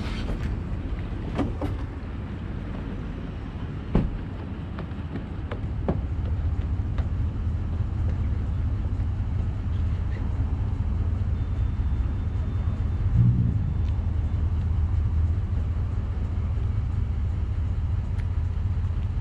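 Engine running at a steady low idle, with a few sharp knocks in the first six seconds and a brief swell in the rumble about two-thirds of the way through.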